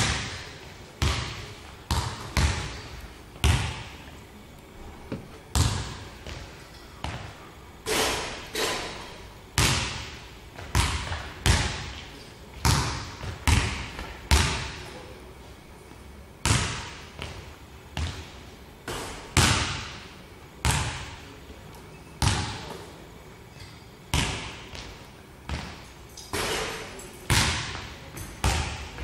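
Basketball bouncing on a hardwood gym floor: a long run of sharp thuds, unevenly spaced at about one a second, each ringing on briefly in the hall's echo.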